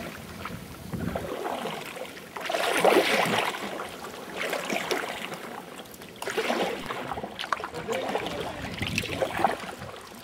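Sea kayak paddle strokes: the blade dipping and pulling through calm sea water, a surge of splashing and swishing every second and a half to two seconds.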